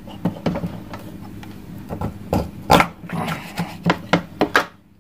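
Knife and hands working a raw stingray on a cutting board while it is being gutted: a string of sharp knocks and cuts, the loudest about two and three-quarter seconds in.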